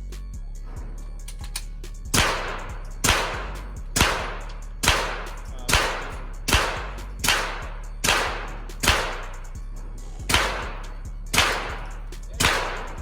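Pistol shots from a Glock in an MCK micro conversion kit, fired singly at a steady pace of just under one a second. About thirteen sharp cracks begin about two seconds in, each dying away quickly.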